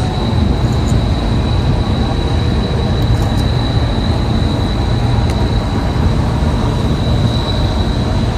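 Steady, loud low rumble of running machinery, with a thin steady high-pitched whine over it.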